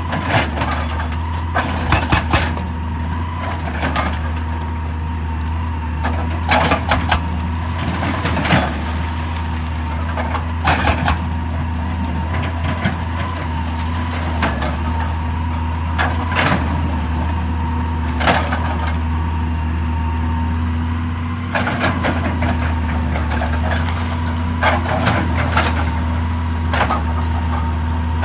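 JCB excavator's diesel engine running steadily with a constant hydraulic whine, broken every few seconds by irregular clusters of sharp clanks and clatter of rock struck or shifted by the machine's attachment.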